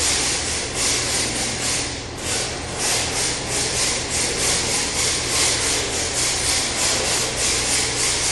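RC drift car sliding on a tiled floor: a rasping scrape of its tyres on the tile that swells and fades about twice a second.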